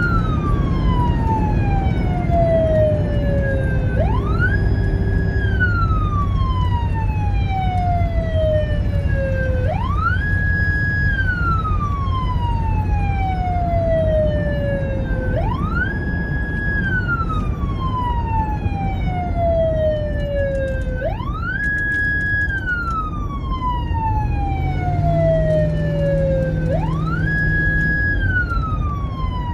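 American police car siren sounding a slow wail. Each cycle climbs quickly to a high pitch, holds about a second, then falls slowly, repeating about every five and a half seconds. Under it runs a steady car engine and road rumble, with the engine note rising and holding near the end.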